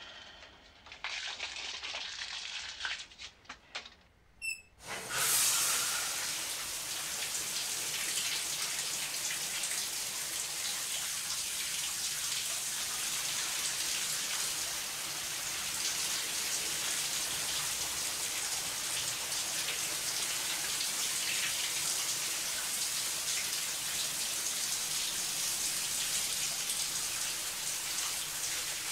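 A shower is turned on about five seconds in, just after a short squeak, and its spray then runs steadily, hissing onto tile.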